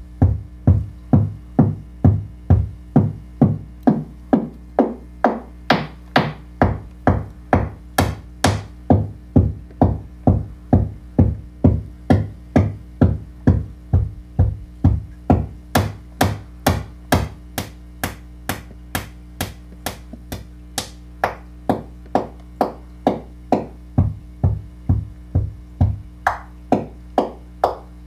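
Make Noise 0-Coast synthesizer playing a repeating deep electronic drum hit, about two a second, its pitch swept down by the slope for each hit. The attack turns brighter and clickier in some stretches as its knobs are turned, over a low steady tone.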